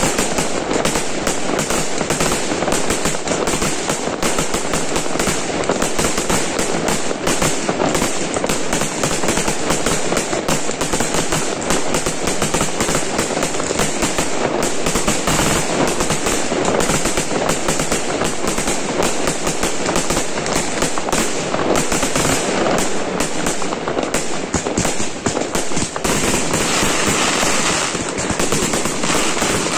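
Aerial fireworks display: a continuous rapid volley of shell bursts, one bang on top of the next with no pause. About 26 seconds in, a denser crackling joins the bangs.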